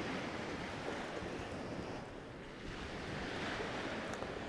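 Sea surf washing on the beach: a steady rush of breaking waves.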